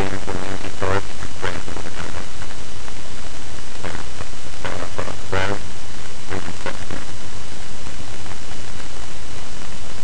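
Loud steady hiss from a poor-quality microphone, with a few brief, muffled voice fragments under it.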